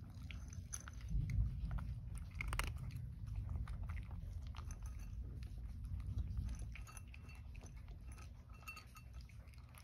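A cat crunching dry kibble from a bowl: a run of irregular, crisp crunches as it chews.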